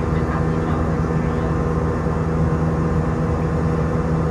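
Steady drone of an Airbus A319's IAE V2500 turbofan engines heard inside the cabin at climb power, a constant low hum with several steady tones over the rush of air.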